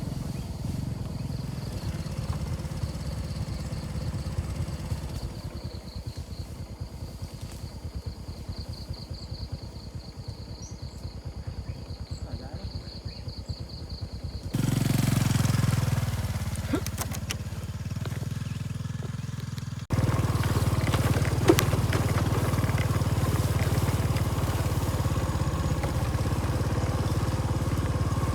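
Small motorcycle engine running steadily while riding. The sound jumps abruptly louder about halfway through and again a few seconds later.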